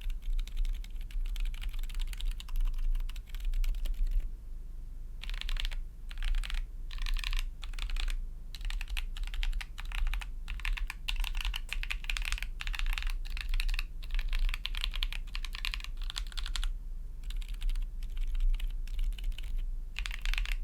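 Typing on an XD75 ortholinear mechanical keyboard fitted with Akko Lavender Purple tactile switches: rapid clacking keystrokes with a poppy sound. The typing comes in runs, broken by short pauses about four, eight and seventeen seconds in.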